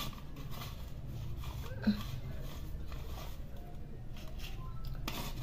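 A pause in grating: a low steady background hum with one small knock about two seconds in. Near the end, jaggery scrapes across a steel hand grater as grating starts again.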